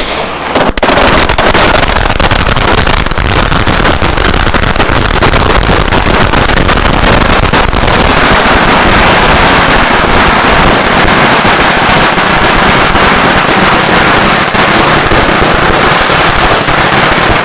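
Chinese firecrackers going off in a long, unbroken rapid crackle of loud bangs, starting just under a second in.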